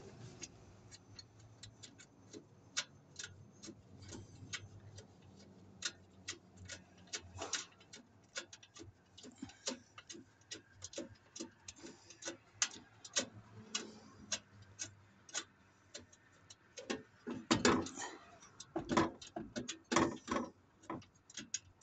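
Hand ratchet wrench clicking as a bolt is loosened: a run of irregular sharp clicks, a few a second, with louder clicks and knocks near the end as the bolt comes free.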